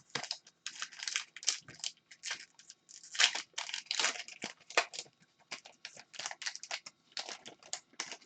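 Crinkling and rustling of trading-card pack wrappers and cards being handled: a dense run of short, irregular crackles.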